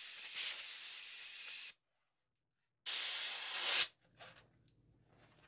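Compressed-air blow gun blasting dust and grit out of a drum sander's shaft bearing: a steady hiss that stops less than two seconds in, then a second, shorter blast about a second later that grows louder before cutting off, followed by a few faint ticks.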